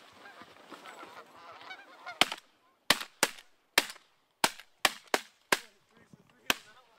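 A flock of Canada geese honking overhead, then about nine shotgun shots fired in quick, uneven succession from several guns, starting about two seconds in. The honking thins out once the shooting starts.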